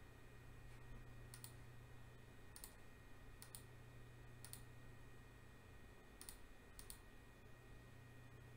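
Near silence with about seven faint, sharp key presses on a computer keyboard, unevenly spaced and a couple in quick pairs, over a low steady hum.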